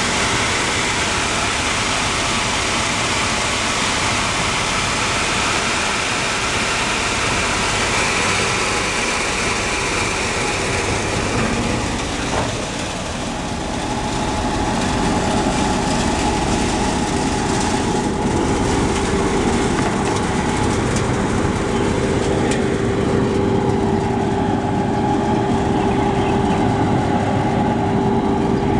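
Soybean and pea dehulling machine running: a steady mechanical noise with a constant hum. About halfway through the sound dips briefly, then the hum comes back stronger and steadier.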